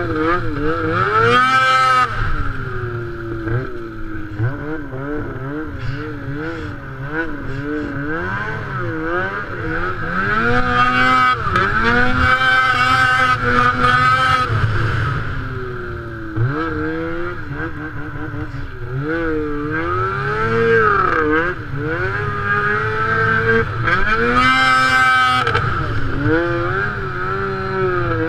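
Snowmobile engine revving up and down over and over as the sled is ridden through deep snow. It reaches its highest revs in three bursts, about a second in, around the middle and near the end.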